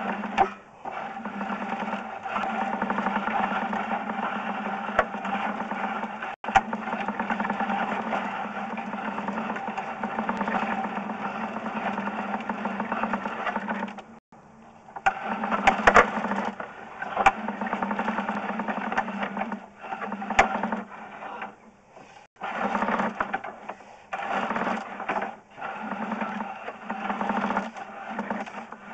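Sewer camera push cable being fed down a cast-iron sewer line, a steady mechanical scraping and rattling with a few sharp clicks. It stops briefly about halfway through and again about three-quarters of the way through.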